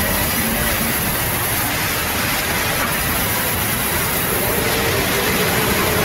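Large sawmill band saw running and ripping through a log, a loud, steady noise.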